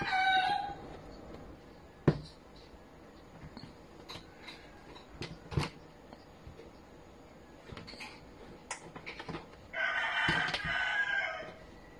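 A rooster crowing at the very start and again near the end, the second crow lasting nearly two seconds and the loudest sound. In between come scattered light taps and clicks as a cat paws at a small object on a desk.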